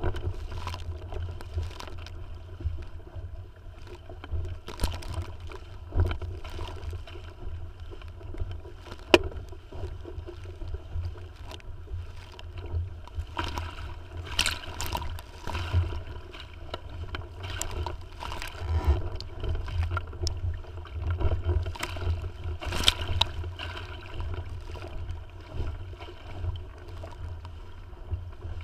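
Lake water splashing and lapping against the hull of a Tiwal 3 inflatable sailing dinghy under way, with irregular sharp slaps. A steady low rumble of wind on the microphone runs underneath.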